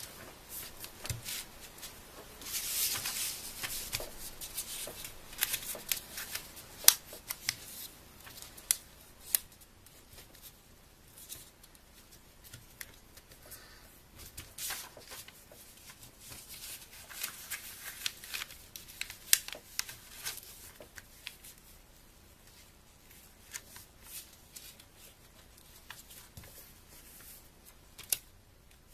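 A sheet of paper being folded and creased by hand: irregular rustling and crinkling with sharp crackles as the folds are pressed flat, and a longer rustle a few seconds in.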